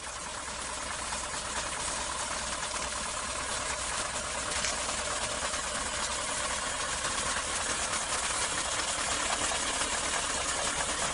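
Truck diesel engines idling at night under a steady, loud hiss, with a low engine rumble beneath and no distinct events.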